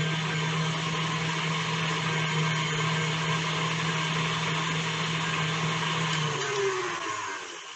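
Electric mixer whipping shea butter lotion with cornstarch, its motor running steadily. It is switched off about six and a half seconds in and winds down.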